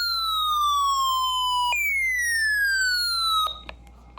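Electronic alert siren: two falling wails, each about three seconds long and sliding down in pitch, with the second cutting off abruptly about three and a half seconds in. A few faint clicks follow.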